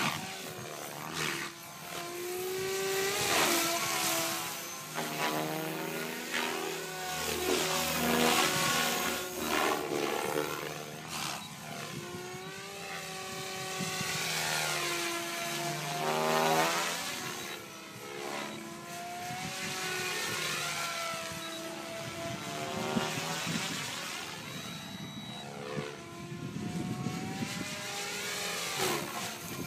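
SAB Goblin 500 electric radio-controlled helicopter flying 3D aerobatics at low head speed. The rotor and motor whine keeps rising and falling in pitch and loudness as the helicopter manoeuvres.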